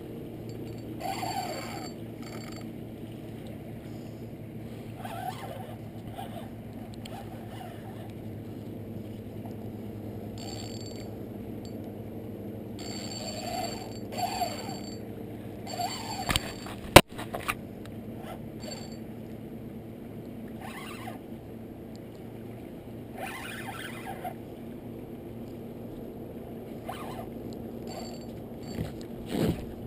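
Steady low hum of a boat motor, with short rustling handling noises every few seconds and one sharp click about seventeen seconds in.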